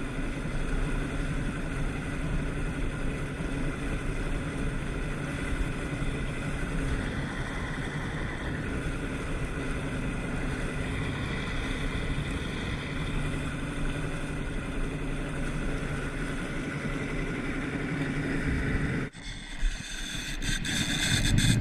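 Boat's outboard motor running steadily at trolling speed, with water churning in its wake. About 19 s in, the sound drops out abruptly and comes back louder and brighter.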